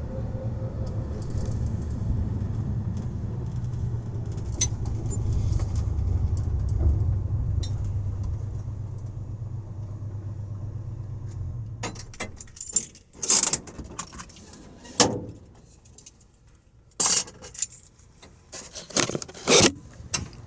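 1984 Dodge van's engine idling with a steady low rumble, then shut off about two-thirds of the way through. After it stops, keys jangle in several short bursts.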